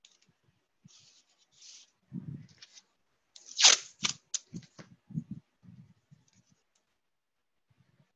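Masking tape pulled off the roll in short rasps, with one loud rip partway through, followed by a few clicks and soft knocks from handling the tape and the mold form on the table.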